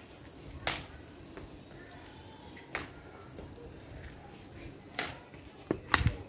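Sand pouring from a plastic bucket into a terracotta pot, a soft steady hiss, broken by several sharp knocks, the loudest about six seconds in.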